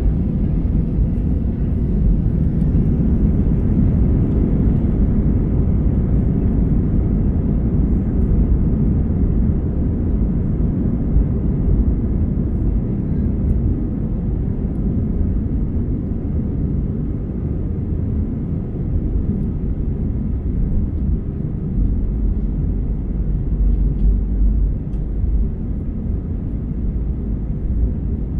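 Steady cabin rumble of an Airbus A320 airliner, its engines and airflow heard from inside the passenger cabin, deep and even throughout.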